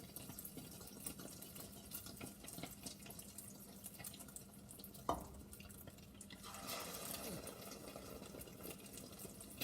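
Egg-coated tuna and potato kebabs frying in oil, a faint steady sizzle with fine crackles. A single knock comes about five seconds in, and the sizzle grows louder about a second and a half later.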